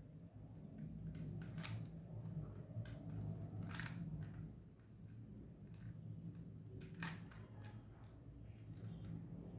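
Rubik's cube layers being turned by hand: faint, irregular plastic clicks and rattles, a few of them more distinct, over a low steady hum.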